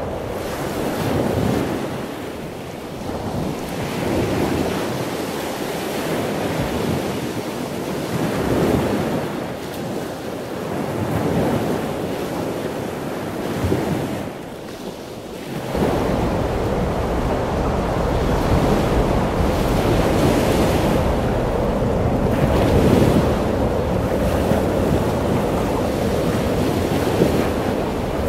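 Ocean surf breaking and washing ashore in swells every few seconds, with wind buffeting the microphone; the low wind rumble grows heavier a little past halfway.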